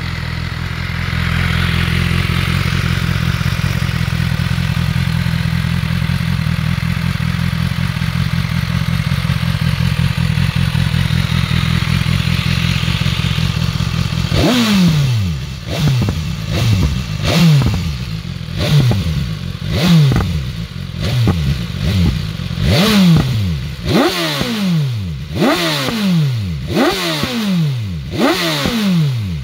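BMW S1000XR's inline-four engine through its stock exhaust, idling steadily just after starting. From about halfway through it is revved in quick throttle blips, roughly one a second, each rising sharply and falling back to idle.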